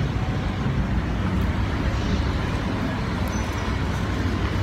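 Steady low outdoor background rumble with no distinct events.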